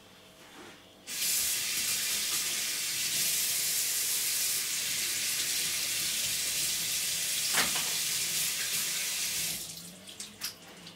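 Steady rushing noise that starts abruptly about a second in and dies away near the end, with one sharp knock about two-thirds of the way through and a few small clicks after the noise stops.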